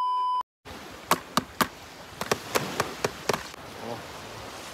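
A steady electronic beep cuts off about half a second in. Then comes a run of sharp taps and clicks over about two seconds: boiled eggs being cracked and shelled by hand over a plastic bag.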